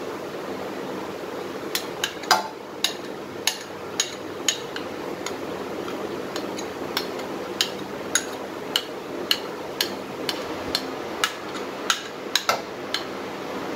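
Spoon clinking against a bowl while scooping cream out into a mixer jar: a run of sharp, ringing taps, roughly two a second, starting about two seconds in, over a steady low hum.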